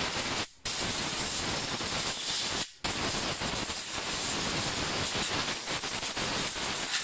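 Compressed-air blow gun hissing steadily as it blows out a scooter's centrifugal clutch shoe assembly, stopping abruptly for a split second twice, about half a second in and again near three seconds in.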